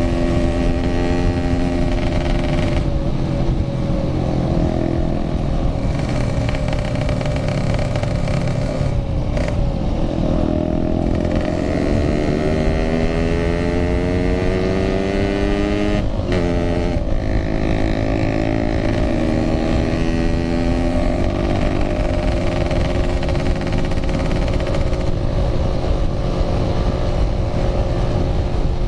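Yamaha RX-King's 135cc two-stroke single-cylinder engine running under way, with road and wind noise. The engine pitch sinks over the first several seconds, climbs steadily, dips suddenly about halfway through as at a gear change, then climbs again and holds.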